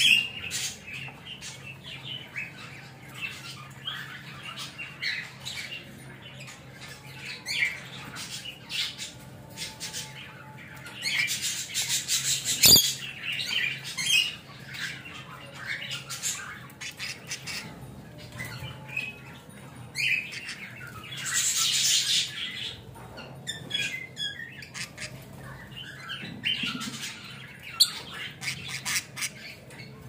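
Budgerigars chattering with short chirps and squawks throughout, with two louder noisy bursts a few seconds long, one about a third of the way in and one about two-thirds in.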